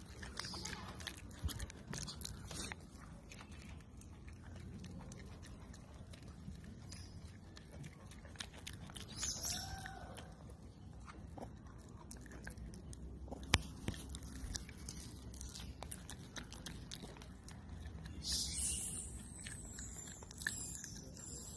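Newborn macaque suckling at its mother's nipple: soft, irregular sucking and mouth clicks, with a short faint squeak about nine seconds in and high chirps near the end.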